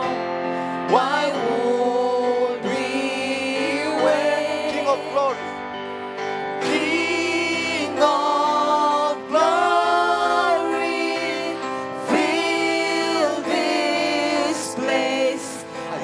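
Church worship singing: a gospel worship song with voices holding long notes over steady instrumental backing.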